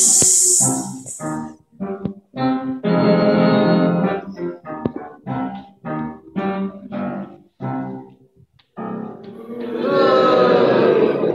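Piano-style keyboard playing stage music: a string of short, separate chords with pauses between them, then a longer held passage near the end. A brief high hiss sounds right at the start.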